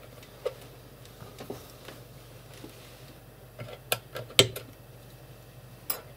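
Light metallic clicks and clinks of hand tools being handled as tweezers and a soldering iron are picked up and brought to a speaker's solder terminal: a scattered few, with a cluster of sharper clinks about four seconds in, over a faint low hum.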